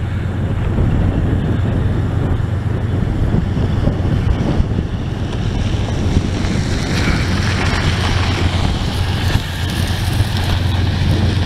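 Diesel locomotives at the head of a loaded coal train approaching slowly, their engines running with a steady low drone, while wind buffets the microphone. A rushing noise builds over the last few seconds.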